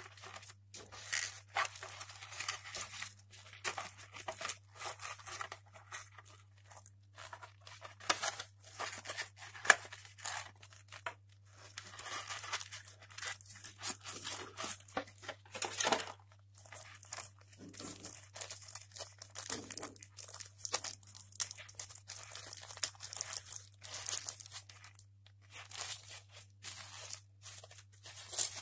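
Plastic earbud packaging handled with rubber-coated work gloves: a grey plastic tray and small clear film bags rustling, crinkling and scraping in irregular bursts. A faint steady low hum runs underneath.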